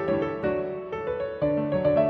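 Background music: piano-led instrumental playing a flowing melody of short notes.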